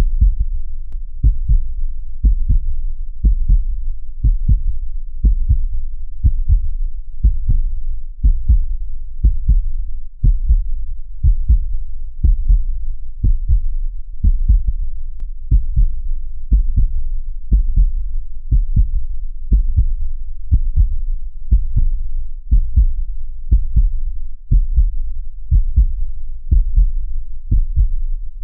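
Heartbeat sound: low, muffled double thumps (lub-dub) repeating at a steady, even pace.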